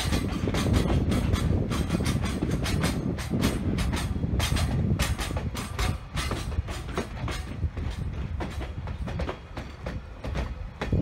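Container freight train's wagons rolling past close by: a steady low rumble with a quick, uneven run of wheel clacks over the rail joints, easing a little after about six seconds.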